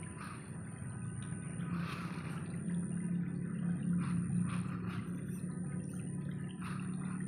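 Small electric toy RC rock crawler's motor and gearbox whirring steadily as it crawls slowly along a log, a little louder in the middle. Short higher rustling noises come every second or so, over a thin steady high tone.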